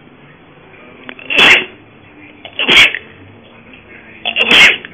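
Cat hissing three times in short, sharp, loud bursts during rough play-fighting.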